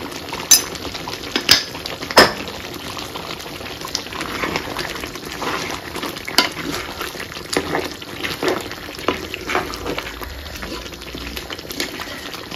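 Metal ladle stirring a thick chicken curry gravy bubbling in a large metal pot as it is cooked down. A few sharp clinks of the ladle against the pot come in the first couple of seconds, then wet stirring strokes about once a second.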